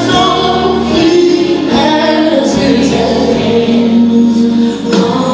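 Recorded gospel song with a woman singing the melody over instrumental backing, played through a loudspeaker in a hall.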